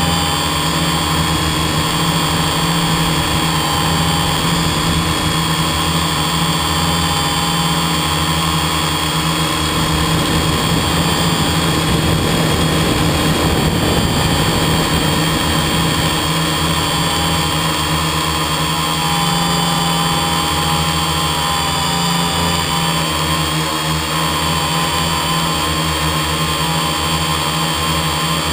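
Engine and propeller of a quarter-scale RC biplane running steadily in flight, heard up close from a camera mounted on the plane. The pitch dips slightly and comes back about two-thirds of the way through.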